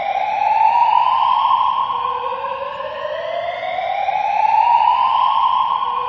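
Electronic fire alarm sounding a slow rising sweep over and over, with added reverb. Each sweep climbs for about three seconds, holds briefly at the top, then drops suddenly back to the low note; it drops twice.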